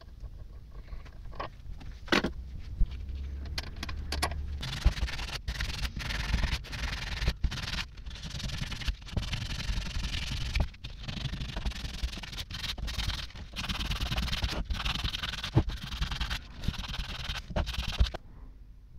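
Hand scrubbing of a cast-metal electric water pump part with an abrasive, cleaning it back to bright metal. A few knocks and handling clicks come first, then a fast scratchy rubbing with brief pauses begins about five seconds in and stops abruptly near the end.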